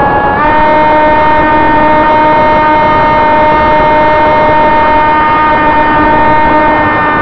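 Electric motor and propeller of a Sonicmodell AR Wing flying wing, heard from its onboard camera: a steady high-pitched whine with many overtones that steps up in pitch about half a second in as the throttle is opened, over a rush of air.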